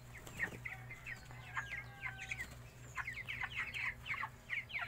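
A flock of about fifty 23-day-old broiler chickens peeping, many short, high, falling cheeps overlapping and growing busier in the second half, over a steady low hum.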